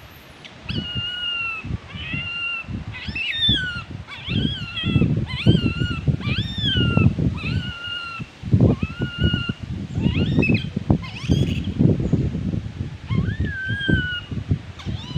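Baby long-tailed macaque crying in a long series of high, pitched squeals, many rising then falling, from about a second in to the end, over a low irregular rumble. The crying is the infant's distress at being refused the nipple.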